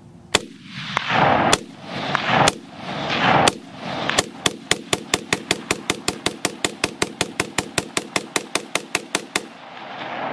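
ACR rifle in 5.56 firing tracer rounds. A few single shots about a second apart, each trailing off in a long echo, then a fast string of about thirty shots over some five seconds that stops suddenly.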